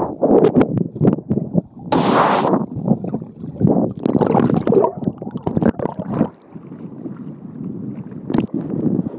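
Sea water sloshing and rumbling against an underwater camera's housing, muffled and irregular, with a brief loud hiss of churning water about two seconds in. After about six seconds it turns quieter and steadier, with a single sharp click near the end.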